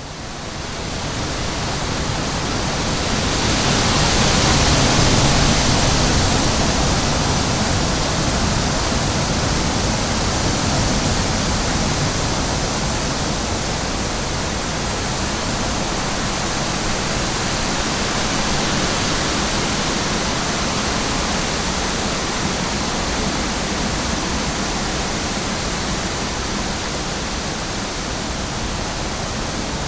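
Steady rushing of falling water, an even hiss with no distinct events. It fades in at the start, swells a few seconds in, then holds level.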